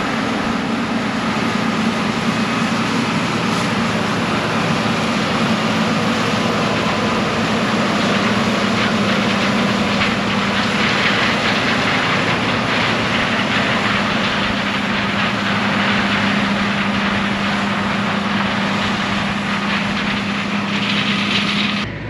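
John Deere 9670 STS combine harvesting corn, running steadily: a constant engine drone with a steady hum and a broad hiss over it.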